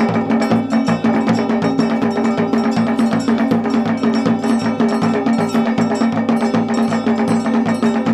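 Traditional percussion music: a fast, even beat of drum strikes with ringing pitched tones over a steady held low note.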